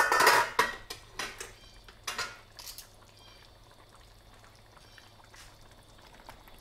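Cooking utensils clattering against a plate and a stainless-steel pot: a loud clatter at the start and a few lighter clinks over the next three seconds, then quiet.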